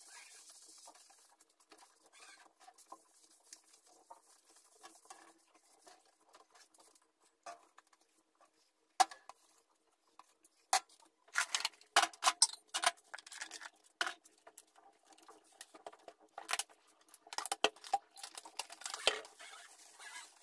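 Kitchen cleaning: a sponge scrubbing a glass jar and its metal lid, with rapid scratchy squeaks and clinks of glass and metal. The scrubbing is faint for the first half, with one sharp click about nine seconds in, and comes in a quick run of loud strokes over the second half.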